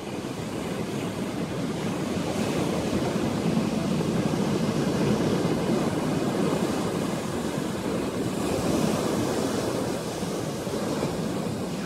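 Ocean surf washing up a pebble-and-sand beach: a steady rush of breaking waves that swells louder a few seconds in and eases near the end.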